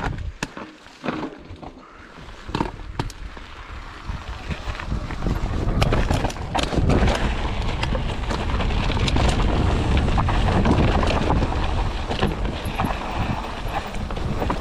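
Trail noise from a Mondraker Foxy mountain bike descending a rocky singletrack: tyres on dirt and rock, and knocks and rattles from the bike, with wind buffeting the microphone. It starts as scattered clicks and knocks, then becomes a dense, louder rumble from about a third of the way in.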